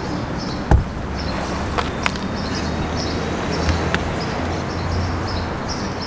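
An angler reels in a hooked bass on a baitcasting reel from a bass boat. A single hollow thump comes about a second in, followed by a low steady rumble and a few light clicks.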